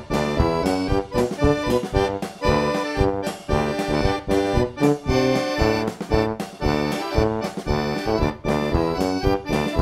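Background music with a steady beat and a lively, folk-style melody.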